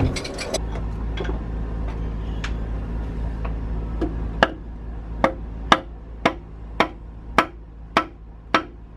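Hammer blows ringing on the metal of a diesel engine being torn down, starting about halfway through and repeating evenly about twice a second. A steady low hum runs underneath.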